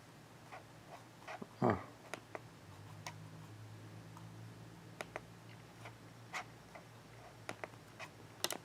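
Scattered light clicks of a computer pointing device being worked through menus. About one and a half seconds in there is one louder brief scrape, and a faint low hum runs through the middle.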